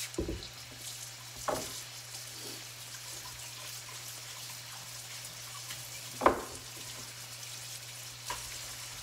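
Pork tenderloin pieces sizzling gently in oil in a frying pan, with a few sharp pops of spattering oil, the loudest about six seconds in.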